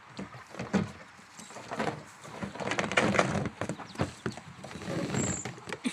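Young goats' hooves knocking and scrabbling on a hard play structure, in irregular clatters that are busiest around the middle.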